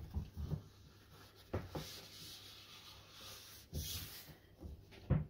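Wad of paper towel rubbing and wiping across a wooden tabletop, mopping up sprayed rubbing alcohol, with a few soft knocks.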